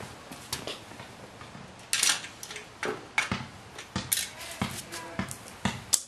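Irregular metal clinks and knocks from tools and hardware being handled on a drift trike's frame during assembly, a dozen or so sharp hits, the loudest about two seconds in.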